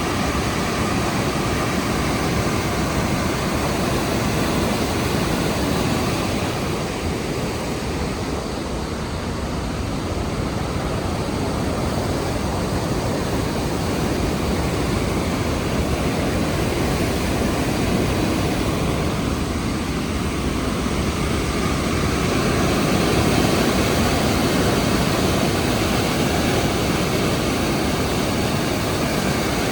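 Rhine Falls' cascading water making a loud, steady rush, heaviest in the low range, easing a little about a third of the way in and swelling again later.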